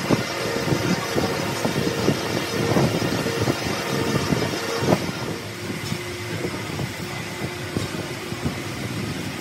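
Crankshaft grinding machine running, its abrasive wheel grinding a steel journal of a Nissan six-cylinder crankshaft: a steady machine hum under the rasp of the cut, a little quieter from about five seconds in.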